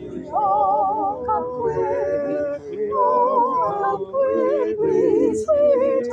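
Small madrigal choir singing a cappella: several voice parts holding and moving between notes together, with vibrato.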